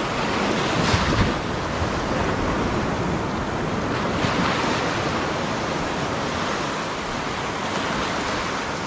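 Ocean surf breaking and washing over a shallow rocky reef, a steady rushing wash that swells louder about a second in and again around four seconds.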